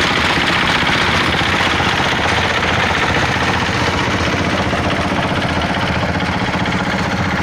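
Diesel engine running steadily at idle, with a fast, even pulse.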